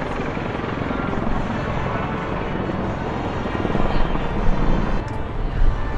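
Military helicopter's rotor and turbine noise, a steady rush with a fast flutter, growing louder in the second half.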